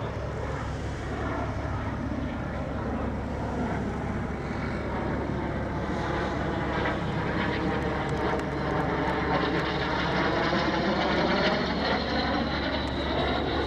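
Jet engines of a formation of Aero L-39 Albatros jet trainers flying past: a steady jet rush with a sweeping, wavering quality that swells as they pass, loudest shortly before the end.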